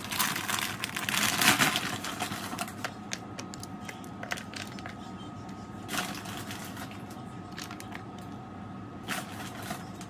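Rustling and crinkling of food packaging as shredded cheese is sprinkled over chili dogs, loudest in the first couple of seconds, then a few short rustles and light clicks.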